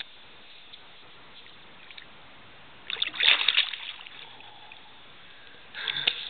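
Water splashing in two short bursts, about three seconds in and again near the end, as a revived northern pike kicks its tail and swims free.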